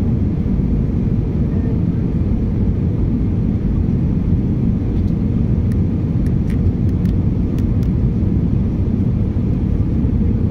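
Steady low rumble of cabin noise inside an Airbus A321 descending on final approach: engine and airflow noise heard through the fuselage, with a few faint ticks about halfway through.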